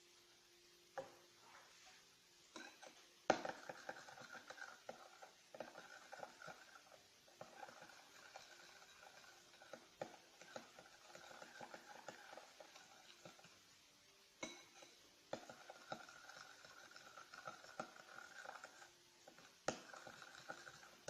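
Faint stirring of thick glue and poster paint in a bowl with a utensil, steady scraping and small clicks against the bowl's sides, beginning with a sharp knock and pausing briefly about two-thirds of the way through.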